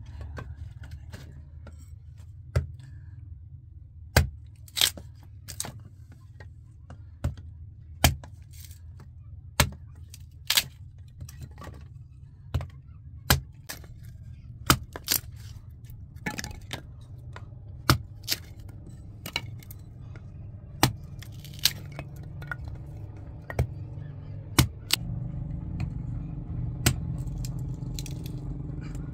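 Small hand axe splitting dry firewood into kindling: sharp chops and cracks of splitting wood, irregular and about one a second, with a low steady rumble underneath.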